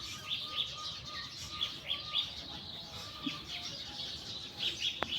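Many small birds chirping together, with short high chirps overlapping throughout and a fainter string of repeated lower notes underneath.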